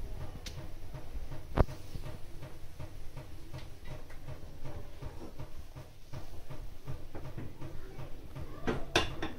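Milk tea bubbling at a boil in a steel pan over a gas burner, with a low rumble under many small ticks. A sharp knock comes about a second and a half in, and a few clicks near the end.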